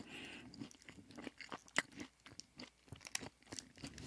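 A person chewing a dry energy bar close to the microphone: soft, irregular crunches and wet mouth clicks.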